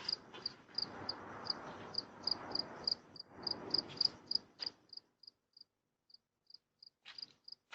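Cricket chirping, about three short high chirps a second, thinning out in the second half. Under it, in the first half, a low rustling noise with a few clicks.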